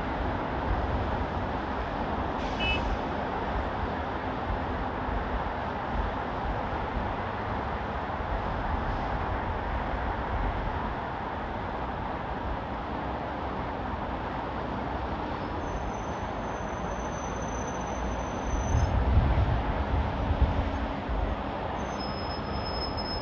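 Steady noise of busy city road traffic on a multi-lane boulevard, heard from above. A louder low rumble swells for a couple of seconds near the end, as a heavier vehicle passes, and faint high thin tones come and go.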